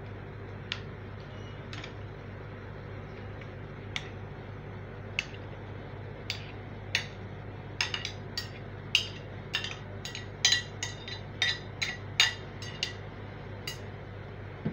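A utensil clinking and scraping against a plate while minced-meat filling is spooned out onto pastry sheets in a steel tray. The sharp clicks are scattered at first, then come two or three a second in the second half, over a steady low hum.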